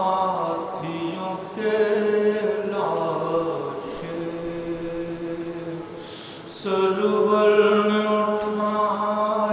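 A man chanting a Karbala lament in long, held melodic lines. His voice sinks softer past the middle and swells louder again about two-thirds of the way through.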